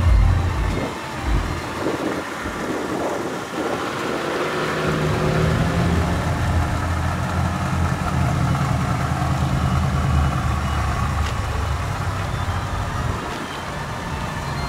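A BMW sedan's engine idling steadily: a low, even hum that grows stronger about four seconds in.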